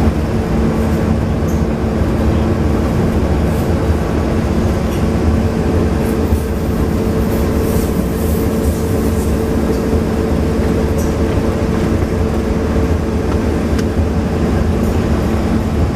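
Diesel engine of a DB V60 (class 363) shunting locomotive running steadily under way, heard from inside the cab: an even engine drone with a low rumble of the locomotive rolling along the track.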